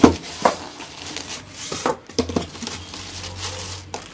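Styrofoam packing pieces and plastic wrap rustling and crinkling as a sandwich maker is unpacked, with several light knocks against the counter, the loudest right at the start.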